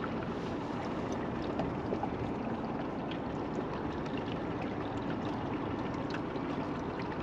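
Steady rushing and splashing of water around a small fishing boat, with scattered faint drips and ticks.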